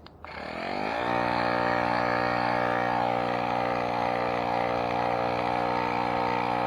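Electric tire pump switched on with a click, its motor spinning up over about a second and then running steadily as it inflates an e-bike tire.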